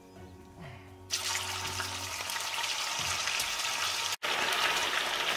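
Pieces of boiled pork dropped into hot oil and melted sugar in a frying pan, setting off a loud, steady sizzle that starts suddenly about a second in.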